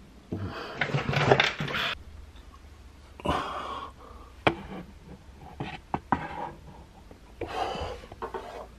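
Toys being rummaged and shoved about by hand: rustling with several sharp knocks, and breathy huffing sounds in the first two seconds.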